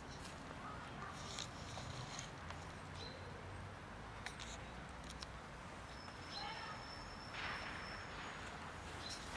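Faint outdoor ambience with a few scattered soft clicks from cats eating out of a plastic food tub. A thin, steady high tone lasts about two seconds past the middle.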